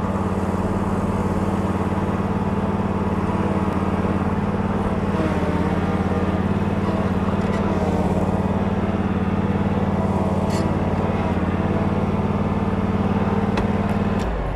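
John Deere Z648M stand-on mower's 22-horsepower Kawasaki V-twin engine running at a steady speed as the mower is driven. It winds down sharply near the end.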